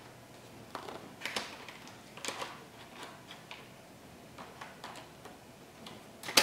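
Light plastic clicks and rubs as a laptop battery is pushed and slid into its bay on the underside of an HP Envy 17 laptop, ending in one sharp click as it latches into place.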